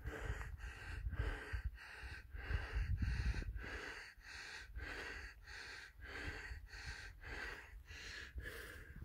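Rapid, heavy breathing close to the microphone, in an even rhythm of about two breaths a second.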